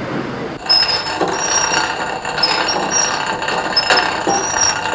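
Bicycle drivetrain running: the chain working over the chainring and sprockets, starting suddenly about half a second in, with short high squeaks recurring every second or so.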